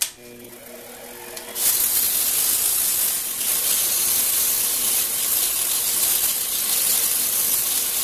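Sandpaper held against a spinning turned wooden piece on a lathe, sanding and rounding over its edge. After a quieter start with the lathe running, the paper goes on about a second and a half in and gives a loud, steady hiss.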